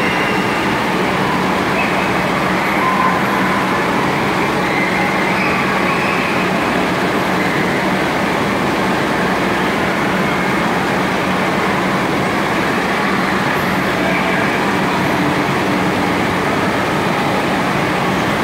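Steady, loud din of an indoor water park: running water and many distant voices echoing together, over a steady low hum.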